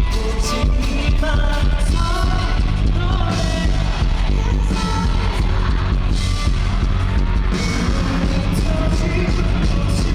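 Rock band playing live: a sung lead vocal over drums, bass and guitars, with the drums and cymbals driving the beat.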